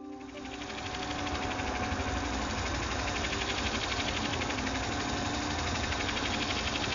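Benchtop spindle sander running with an oak block held to its sanding drum: a steady mechanical whir with a fast, even buzz that comes up over the first second, then holds level.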